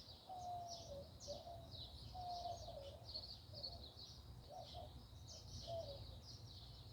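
Birds singing faintly: a continuous run of quick, high chirps, with shorter, lower whistled notes about once a second, over a low steady background rumble.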